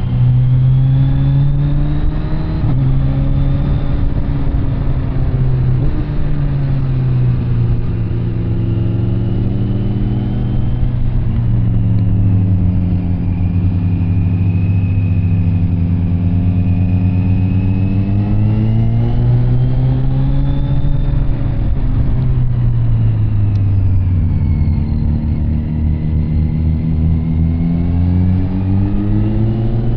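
Kawasaki Z900 SE's inline-four engine through an SC Project CR-T carbon aftermarket exhaust, running under way. Its note climbs and falls repeatedly, with sudden drops in pitch at gear changes.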